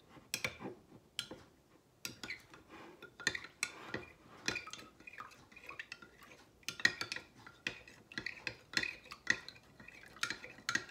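A metal spoon stirring a thin cornstarch-and-soy-sauce mixture in a Pyrex glass measuring cup, clinking irregularly against the glass.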